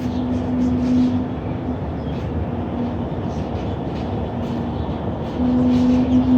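An unexplained low, steady horn-like tone heard from the sky, over a background of outdoor noise. It fades and returns several times and swells louder near the end.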